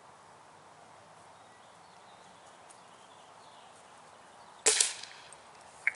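A single shot from a .22 caliber break-barrel pellet air rifle: one sharp crack about three-quarters of the way in, with a short ringing tail, after several seconds of faint steady background.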